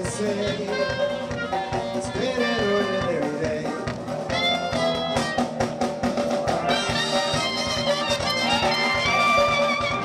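A live band playing instrumental music: trumpet-led brass over electric bass and drums, with a steady dance beat.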